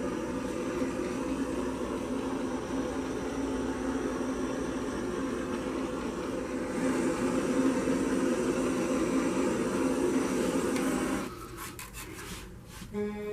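Handheld torch flame running steadily as it is played over wet acrylic paint to pop air bubbles, growing louder about halfway through, then shut off suddenly near the end, followed by a few light clicks and a small knock.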